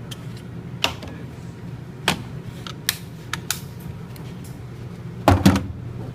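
Scattered sharp clicks and knocks of a pistol and its magazine being handled, with a louder cluster of clicks about five seconds in, over a steady low hum.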